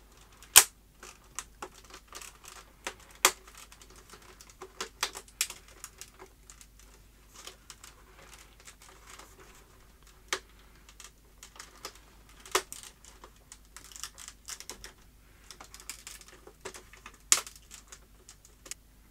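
Irregular sharp plastic clicks and ticks as fingers work around the edge of an LG W2261V monitor's clip-fastened front bezel to pry it loose, with a few louder snaps scattered among them.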